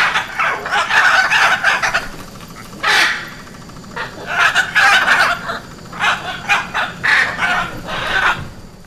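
Hyacinth macaws calling: a run of loud, harsh squawks, several in quick succession, fading out at the very end.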